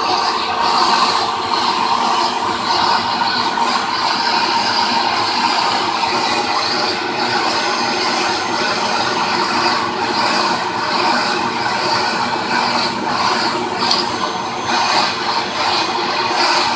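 Vacuum cleaner running steadily with its crevice nozzle, the high airflow hiss flickering in strength as the nozzle is drawn over a cat's fur.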